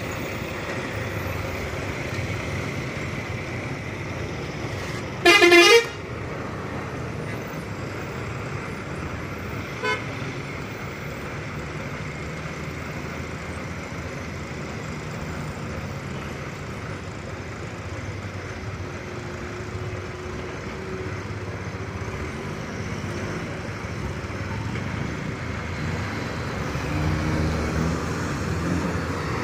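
Mountain-road traffic at a hairpin bend: a steady run of lorry and vehicle engines and tyre noise, cut by one loud vehicle horn blast of under a second about five seconds in. Engine noise rises near the end as motorcycles climb past.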